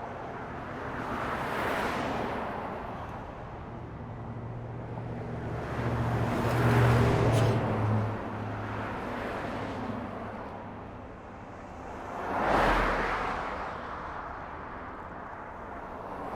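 City road traffic going by, with vehicles passing one after another. One vehicle with a low engine hum passes about six to eight seconds in, and a car sweeps past quickly near the end.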